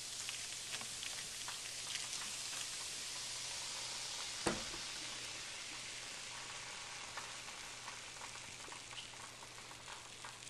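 Cola fizzing with a steady crackling hiss as it foams over a corroded car battery terminal, eating away the white corrosion. The hiss slowly fades, and there is one sharp knock about four and a half seconds in.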